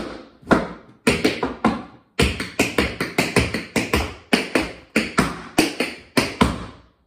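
Metal taps on tap shoes striking a hard floor in a fast tap-dance combination: quick runs of crisp clicks with a short pause about two seconds in. The tapping cuts off suddenly near the end.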